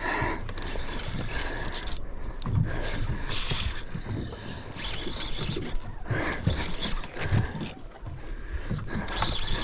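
Fishing reel being wound and clicking as a hooked fish is fought, with irregular mechanical ticks and a brief high hiss about three and a half seconds in.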